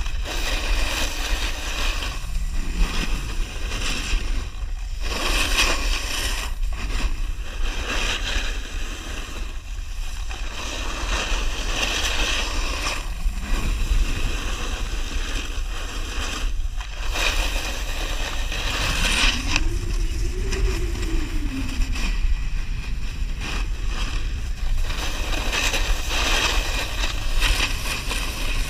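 A snowboard carving down a groomed slope, its edge scraping across the snow in repeated swells with each turn, under a steady low rumble of wind buffeting the microphone.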